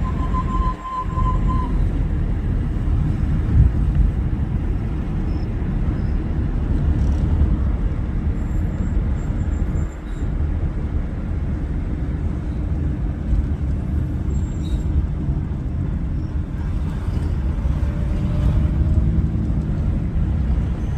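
HRTC bus running, a steady low engine and road rumble, with a brief steady high tone in the first second or two.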